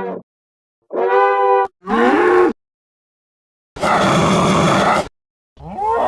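Creature sound effects for a dinosaur-like monster: a string of separate calls cut apart by dead silence. A pitched call, one that bends down in pitch, a rough noisy roar, then a call that slides up near the end.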